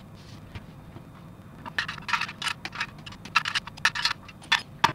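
Small hard plastic model-kit parts rattling and clicking against a clear plastic parts box as a hand sorts through them, a run of quick clatters starting about two seconds in and lasting until near the end.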